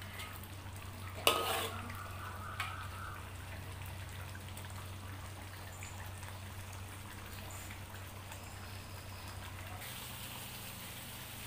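Chicken in thick red chilli sauce simmering and sizzling in an aluminium wok as it is cooked down until dry. A sharp ringing clank of the metal ladle against the wok comes about a second in, and a lighter tap follows a second later, over a steady low hum.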